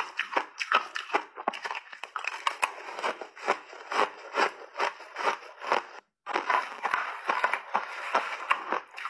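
Close-miked chewing of crunchy refrozen ice with mixed berries: rapid, sharp crunches, several a second. There is a brief silent gap about six seconds in.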